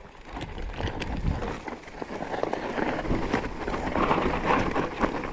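An e-mountain bike ridden down a dirt trail: tyres crunching over dirt and stones with the bike rattling over the bumps, growing louder after about a second, with a faint high whine coming and going.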